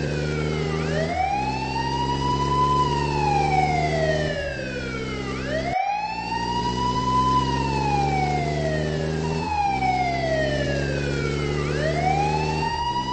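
Police siren sound effect wailing in slow rises and falls, about one cycle every five seconds, over a steady vehicle engine drone.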